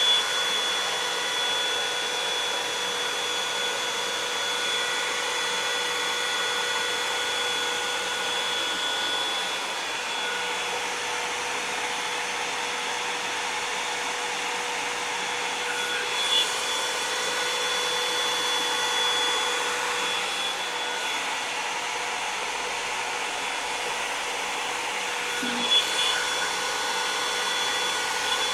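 Revlon One-Step hot-air brush dryer running steadily as it dries damp hair, a constant rush of air with a thin steady whine. It is briefly louder twice, about halfway through and near the end.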